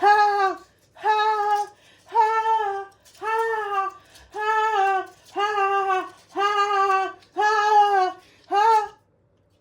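A high voice sings the same note over and over, about once a second, eight times. Each note is held for about half a second and sags in pitch as it ends. The last one is cut short.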